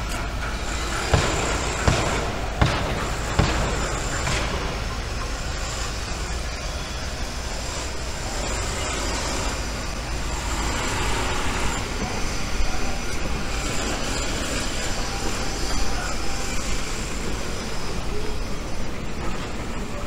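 Steady outdoor background noise with a low rumble, and four sharp knocks a little under a second apart in the first few seconds.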